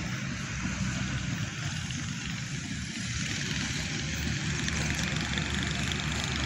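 Diesel locomotive of an approaching passenger train, a steady engine hum heard from a distance, growing slightly louder about halfway through.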